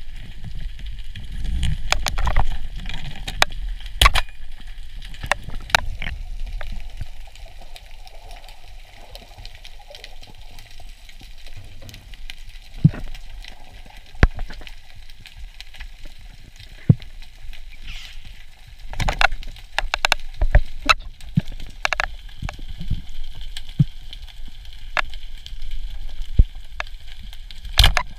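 Underwater audio picked up by a diver's action camera: a low rumble of moving water with irregular sharp clicks and knocks.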